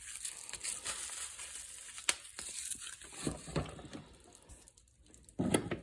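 Packaging crinkling and rustling as it is handled, with a sharp click about two seconds in.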